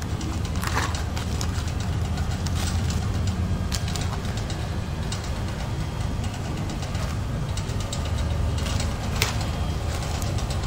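Machinery running with a steady low hum, with a few short crackles of foil-laminate powder sachets being handled, about a second in, near four seconds and near nine seconds.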